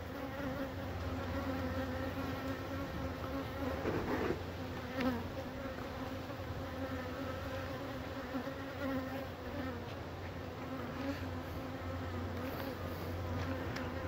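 Honey bees buzzing around an open hive frame: a steady, even hum with no break.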